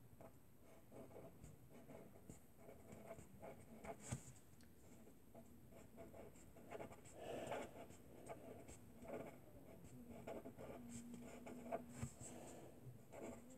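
Pencil scratching faintly on paper in short, irregular strokes as words are written by hand.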